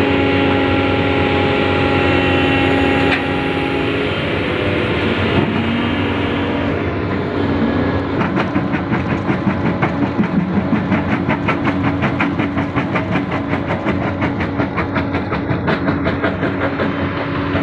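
Excavator-mounted jaw crusher bucket working on rock, over the steady hum of the excavator's engine and hydraulics. From about eight seconds in comes a fast, even clatter as the jaw crushes the stone and gravel spills out of the bucket.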